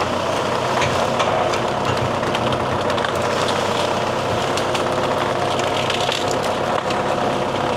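John Deere 5520 tractor's diesel engine running steadily as it moves slowly through brush, with scattered light clicks and snaps over the top.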